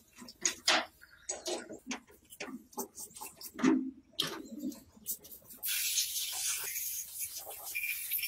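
Small metal engine parts (crankshaft, bearings, gears) clicking and knocking as they are handled and worked with tools. About five and a half seconds in, a steady hiss of compressed air from a blow gun starts.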